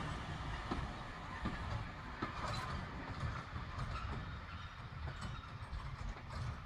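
Train of a small steam tank engine running on the rails: a low rumble with irregular wheel clicks, slowly fading.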